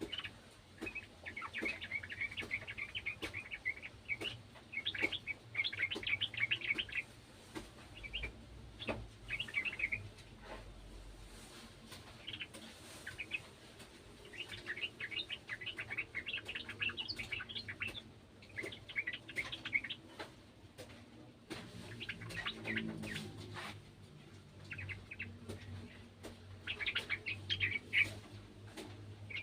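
Yellow-vented bulbul singing in repeated bursts of quick, bubbling chattering notes, separated by short pauses.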